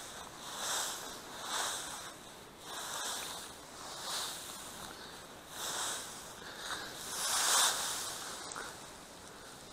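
Dry barley straw and stubble rustling and crunching in a series of irregular swishes, roughly one a second or slower, the loudest near the end: straw being handled or trampled while a makeshift hide is made.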